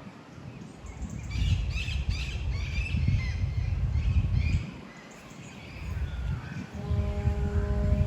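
Wind gusting on the microphone as a heavy, uneven rumble, with small birds chirping in a quick cluster of short calls over the first few seconds. Near the end a steady hum made of several even tones sets in and holds.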